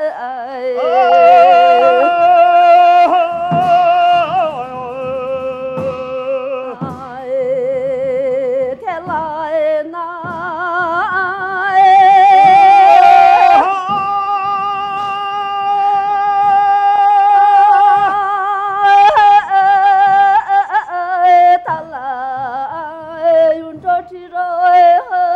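Singing with music: a melodic vocal line of long held notes that waver in pitch, with gliding ornaments between notes and one note held for about five seconds in the middle.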